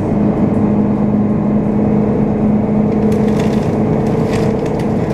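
City bus cruising at steady speed, heard from inside the passenger cabin: a steady engine and drivetrain drone with a constant humming tone. From about three seconds in there are a few short clicks and rattles.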